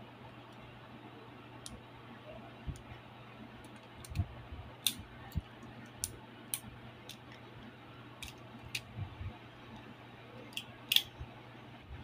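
Parts of a Beyblade Burst spinning top being fitted and clicked together by hand: a scattered series of sharp clicks and light taps, the loudest about eleven seconds in.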